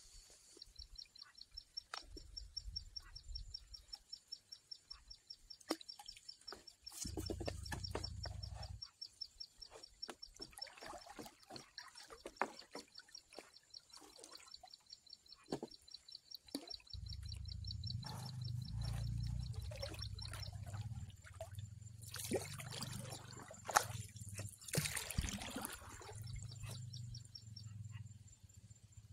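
An insect trills steadily, a fast high-pitched pulsing that stops about twenty seconds in. Under it come stretches of low rumble, scattered clicks and two brief rustling swells near the end.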